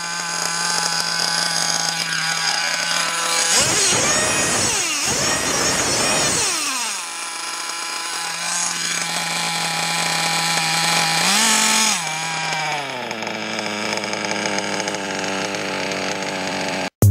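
The Argus .21 two-stroke nitro glow engine of a Losi 8ight 2.0 1/8-scale buggy is running and screaming. It holds a steady high idle, is revved hard up and down between about four and seven seconds in, blips up again near twelve seconds, then drops back to a lower idle.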